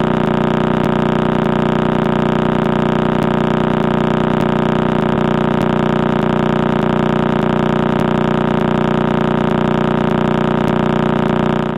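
Crab Pulsar's radio pulses, recorded by a radio telescope and converted to audio: a steady, engine-like buzz made of about thirty pulses a second.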